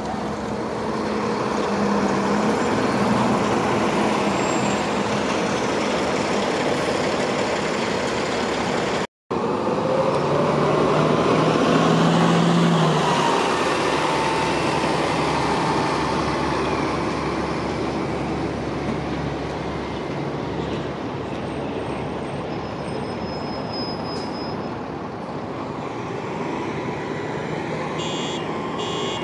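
Transit buses running at a busy stop, with diesel engine and traffic noise. After a brief dropout about nine seconds in, an engine note rises as a bus pulls away, and a high electronic beeping starts near the end.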